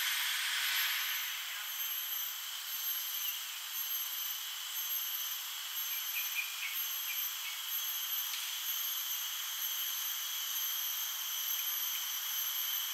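Steady, high-pitched drone of insects, cicadas, in the trees, with a faint pulsing at the top and a few short faint chirps about six seconds in.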